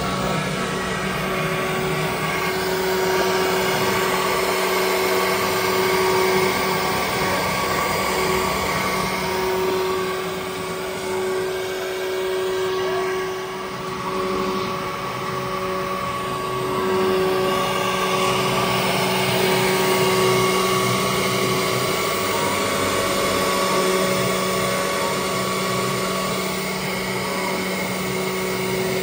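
CNC router running with its 6 kW HSD spindle spinning: a steady whine of several held tones over continuous machine noise, some tones fading and returning.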